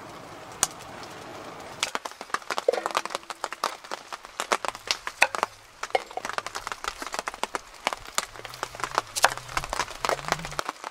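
A knife cutting green vegetables on a wooden chopping board: quick, irregular knocks and clicks of the blade striking the board, starting about two seconds in.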